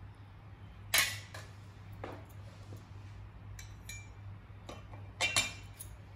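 Stainless steel spatula clinking and scraping against a ceramic bowl while fried noodles are served into it: a handful of sharp clinks, the loudest about a second in and a quick cluster near the end, over a steady low hum.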